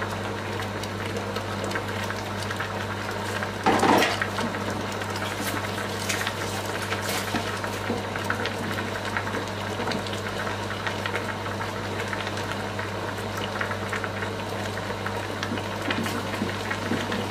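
Water boiling in a cooking pot around pieces of catfish and plantain, a steady bubbling over a low hum. A brief louder noise about four seconds in.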